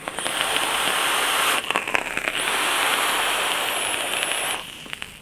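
Coil of a rebuildable dripping atomizer on a mechanical vape mod firing during a long draw: e-liquid sizzling and crackling on the hot coil, with air hissing through the atomizer's airflow and a thin high whistle. It lasts about four and a half seconds with a brief break a little over a second and a half in.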